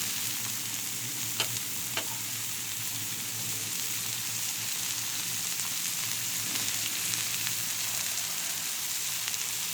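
Shrimp and sirloin steaks sizzling in butter on a Blackstone flat-top griddle, a steady hiss with a low hum underneath and a couple of faint clicks about one and a half and two seconds in.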